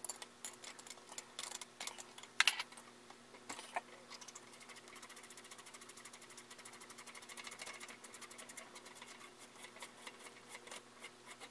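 The threaded spring preload collar on a motorcycle rear shock is being turned to tighten the coil spring. A few sharp metal clicks and knocks come first, then a fast, even run of light ticks as the collar spins on its threads.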